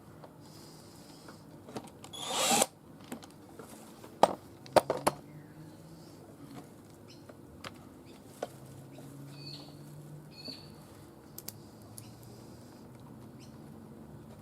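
Cordless drill-driver running briefly about two seconds in, driving screws back into a string trimmer's housing, followed by a few sharp clicks and knocks of handling.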